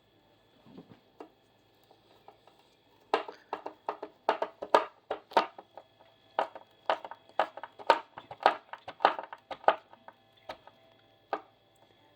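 Hinge screw being driven by hand into a cupboard side panel: a run of sharp, irregular clicks and crunches starting about three seconds in and lasting about seven seconds, then two single clicks near the end. The screw is damaging the panel as it goes in.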